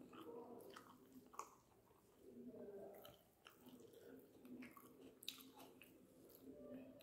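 Faint chewing of a mouthful of string hoppers (idiyappam) with curry, with scattered small mouth clicks.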